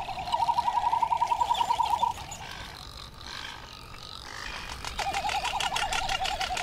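Male frigatebird's courtship display call from its inflated red throat pouch: a rapid warbling trill of about ten pulses a second. It breaks off about two seconds in and starts again near the end.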